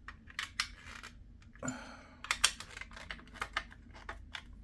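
Irregular small clicks and taps of hard plastic and metal parts being handled while a screw is tightened on a model car kit, with one short scrape about a second and a half in.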